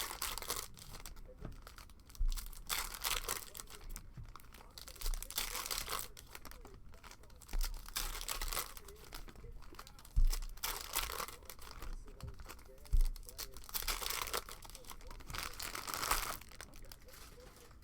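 Foil wrappers of trading card packs being torn open and crinkled, in repeated bursts a second or two long, with a few thumps.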